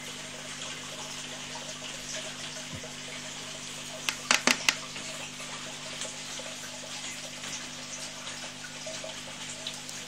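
Aquarium filter water running steadily over a low, steady motor hum. About four seconds in comes a quick run of four or five sharp taps.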